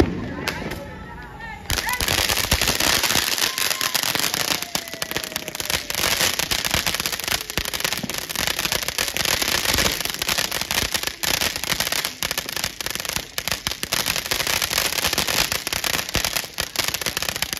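Ground fountain firework: its fuse burns quietly, then about two seconds in it starts suddenly into a loud, dense crackling and fizzing of sparks that keeps on without a break.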